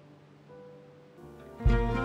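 Closing theme music starting: soft held notes come in after a quiet moment, then a loud, deep bass note enters about one and a half seconds in.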